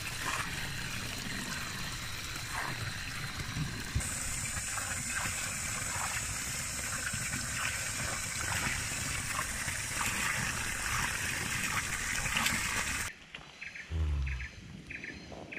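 Water running and trickling steadily. It cuts off suddenly about thirteen seconds in, leaving a much quieter background with faint, regular high ticks.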